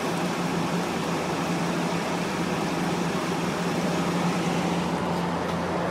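GE 8,100 BTU window air conditioner running its fan on low cool: a steady rush of air with a constant low hum.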